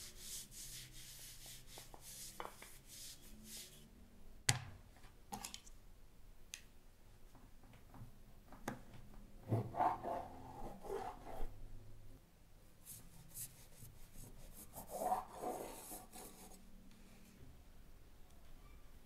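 Quiet food-prep handling sounds. First, hands rub flour off a wooden rolling pin with a dry hiss. There is one sharp knock, then a knife scrapes and cuts through rolled dough on a floured wooden table.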